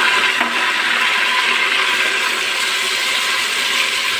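Ginger-garlic paste sizzling as it fries in hot oil with browned onions, a steady hiss.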